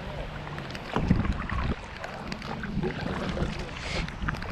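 A pedal kayak under way, with water and hull noise, wind buffeting the microphone and scattered small clicks. A louder gust rumbles about a second in.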